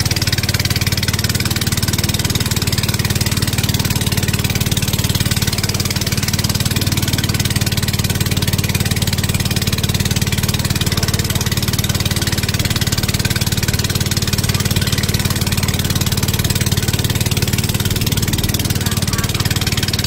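Motorboat engine running steadily at a constant speed, an even low drone that does not change, with a steady hiss over it.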